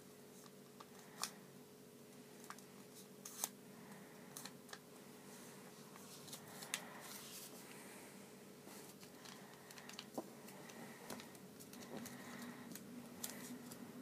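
Origami paper being folded and creased by hand: soft paper rustles with scattered sharp clicks and taps, over a low steady hum.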